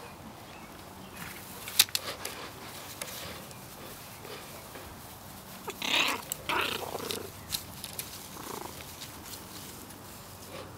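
Two small puppies play-fighting, giving a few short bursts of play-growling about six to seven seconds in, with a sharp click about two seconds in.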